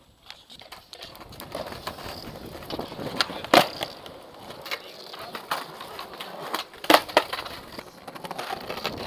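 Skateboard wheels rolling over paving slabs, with two loud clacks of the board hitting the ground during flip tricks, about three and a half and seven seconds in.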